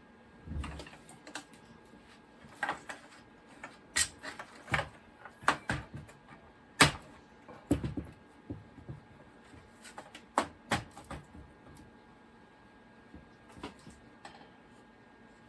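Irregular sharp clicks and knocks of parts being handled while a Macintosh IIfx computer is taken apart, busiest in the middle with one loud knock, over a faint steady hum.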